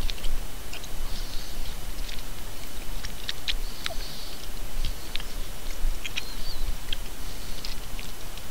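A person chewing raw carrot: crisp crunching and snapping clicks that come again every second or so.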